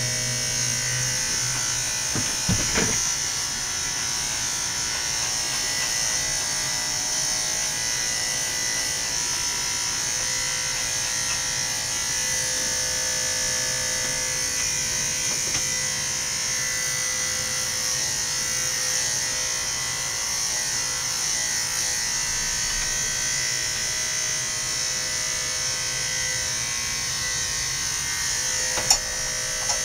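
Electric dog-grooming clippers running with a steady buzz as they shear a dog's curly coat. There is a brief thump about two and a half seconds in and a sharp click near the end.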